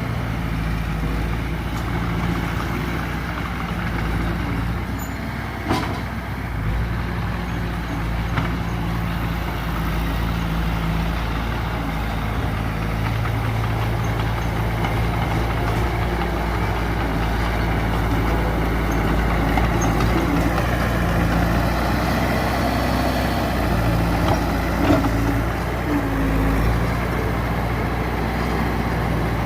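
Diesel earthmoving machinery running steadily under load, with a few short metallic knocks about 6, 8 and 25 seconds in.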